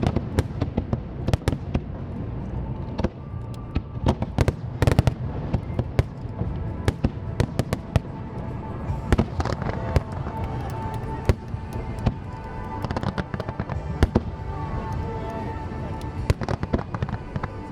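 Aerial fireworks display: shells bursting in quick, irregular succession, many sharp bangs close together, over music played along with the show.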